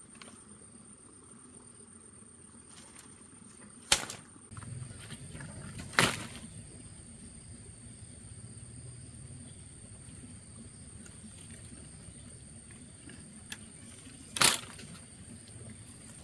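Three sharp knocks, about four, six and fourteen seconds in, over a faint low rustling and a thin steady high-pitched tone.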